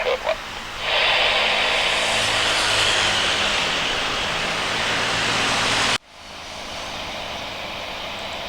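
Airbus A320 jet engines at high power, a loud steady rushing noise that comes in suddenly about a second in. It cuts off abruptly about six seconds in and gives way to a quieter, steady jet engine noise.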